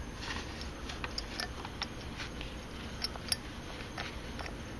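Small irregular metal clicks and ticks as fingers thread a bolt into a chrome air-intake backing plate and handle the hardware, with a sharper click about three seconds in.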